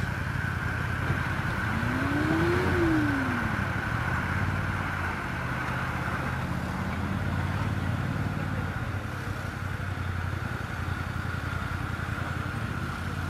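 Off-road 4x4 engines running steadily, with one revving up and back down about two seconds in.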